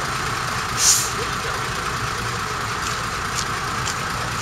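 Steady idling rumble of parked diesel trucks. A short, sharp hiss of air sounds about a second in, and a few faint ticks come later.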